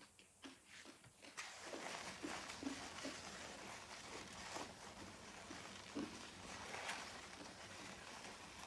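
Paper napkin rustling and crinkling as it is rubbed between the hands to wipe the fingers. It is a soft, steady rustle that starts about a second and a half in, with a few faint clicks before it.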